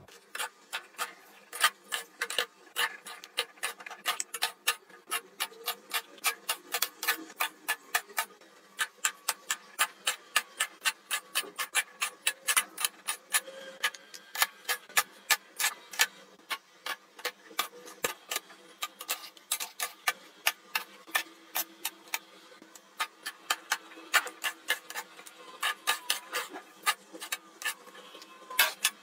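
Eyeshadow palette compacts set down one after another on a clear acrylic tiered organizer: sharp plastic-on-acrylic clacks in quick, irregular runs with short pauses.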